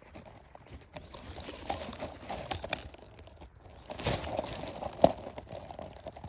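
Leaves, stems and twigs rustling and crackling as someone pushes through undergrowth, with a louder rustle about four seconds in and a sharp snap about a second later.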